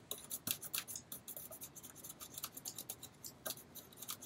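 Fingers rubbing a strip of clear Scotch tape down onto the skin of a rubber balloon: a faint, quick run of small scratchy strokes, several a second.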